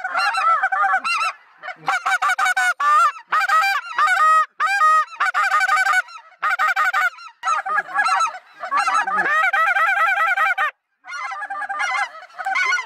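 Many wild geese calling together, a dense chorus of honks and yelps with wavering pitch. The calling breaks off abruptly several times and starts again.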